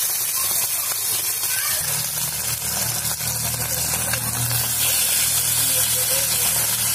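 Pabda fish sizzling in hot mustard oil in a kadai, a steady hiss of frying. A steady low hum joins about two seconds in.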